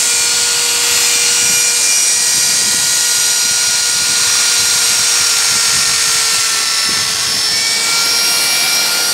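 Handheld die grinder running at a steady high whine over a strong hiss while polishing the steel cavities of an injection mould die; its pitch shifts slightly a little after halfway as the load on the bit changes.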